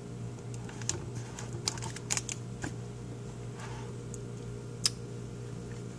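Thin plastic bag film stretched over a cut plastic bottle crinkling and crackling in short bits as a hand grips and turns it. A steady low hum sits underneath.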